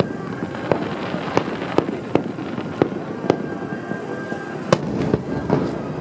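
Aerial fireworks going off: sharp bangs, about two a second at irregular spacing, over a continuous crackle of bursting shells.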